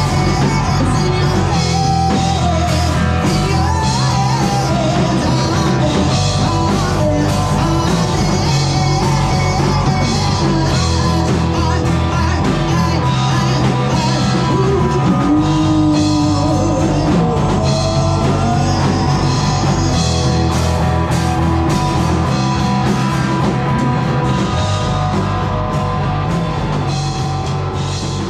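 Live rock band playing: a woman singing into a microphone over guitars and a drum kit, the sound dipping slightly near the end.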